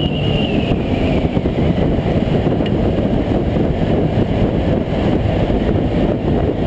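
Automatic Vespa scooter riding at speed into and through a road tunnel: a steady, dense low rumble of engine, tyres and wind on the microphone.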